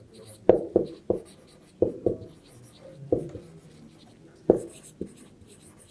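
Marker writing on a whiteboard: a string of irregular short strokes and taps as words are written out.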